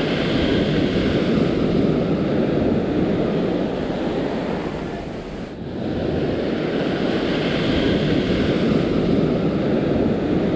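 Ocean surf breaking and washing up a sandy beach, with wind buffeting the microphone. The sound dips briefly about halfway through.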